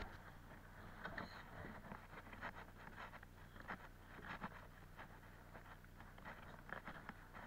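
Faint footsteps and clothing rustle as someone walks on a wooden deck, with scattered small knocks and scrapes at an uneven pace over a low steady hum.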